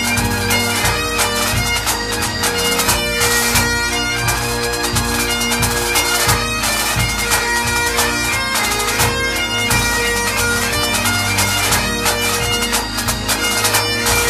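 Great Highland bagpipes playing a tune over their steady drones.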